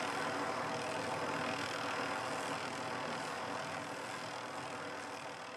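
Helicopter running steadily, slowly fading down toward the end.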